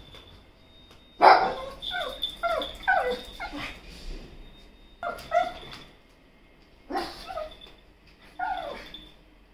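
Pug barking in short bouts: a quick run of about five barks, then a few pairs and a last single bark near the end. The dog is barking at someone at the front door.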